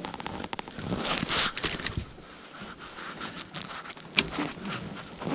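Handling noises from fishing tackle: jacket sleeves rustling and small irregular clicks and scrapes as the line and lure are handled with pliers and a fish grip, with one sharp click about four seconds in.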